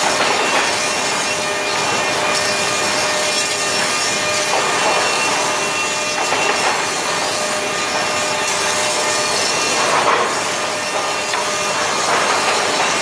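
Automatic board infeed line to a wood moulder running: boards are dragged along the conveyors and pushed by rubber feed rollers, giving a steady loud machine noise with wood rubbing and scraping on metal. The noise swells briefly a few times.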